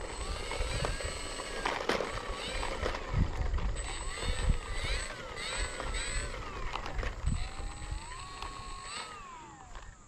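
Electric motor and propeller of an E-flite P-39 model plane whining as it taxis, its pitch rising and falling again and again as the throttle is blipped, with one longer rise and hold about three-quarters of the way in. Wind buffets the microphone with a low rumble throughout.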